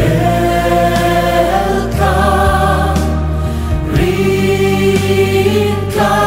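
Background music: a choir singing a slow hymn-like song over held chords that change about every two seconds.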